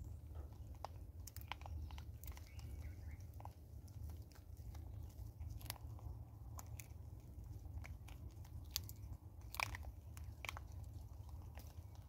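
Vervet monkeys chewing and crunching birdseed and corn kernels, with scattered sharp clicks as they pick over and bite the seed, over a steady low rumble.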